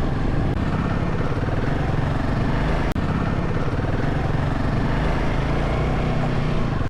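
Off-road motorcycle engine running steadily, its pitch holding even.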